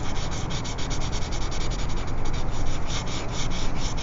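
Drawing tool rubbing on paper in quick back-and-forth shading strokes: a steady scratchy rasp pulsing several times a second.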